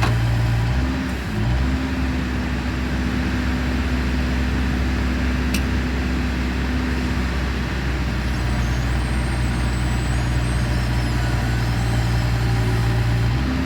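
A vehicle engine idling with a steady low hum, which wavers and shifts in pitch briefly about a second in.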